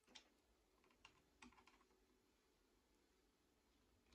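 Near silence with a few faint, light clicks in the first half, from small brass parts of a clock movement being handled and fitted.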